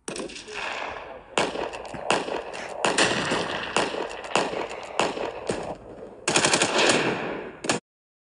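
Gunfire sound effect: repeated bursts of automatic-weapon fire, ending in a dense rapid burst that cuts off suddenly.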